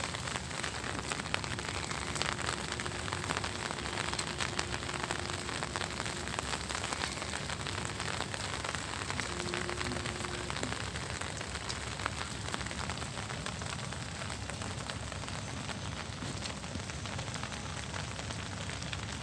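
Steady rain falling on a tiled rooftop floor and the leaves of potted plants: an even hiss made up of countless small drop taps.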